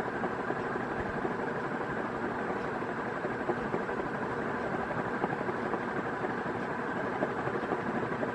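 Northwest Envirofan Heavy Duty Gold Line industrial ceiling fan running steadily on low speed through a solid-state speed control.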